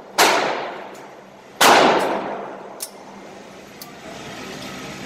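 Two pistol shots about a second and a half apart, each with a long reverberating tail in an enclosed indoor range, followed by a few faint clicks.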